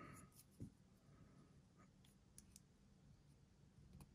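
Near silence with a soft knock about half a second in and a few faint small clicks, from fingers working the spring-loaded slide of a miniature plastic toy pistol.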